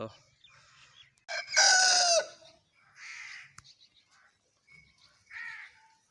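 Aseel rooster crowing: one loud crow about a second and a half in, its pitch dropping at the end. Fainter, shorter calls follow.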